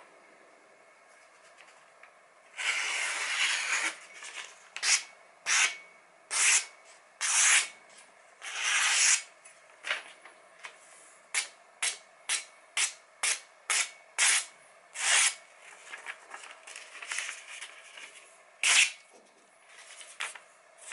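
Cleaver blade slicing through a sheet of paper: a long run of short cutting strokes, about one or two a second, with paper rustling between them. This is a paper-cutting test of the sharpened edge.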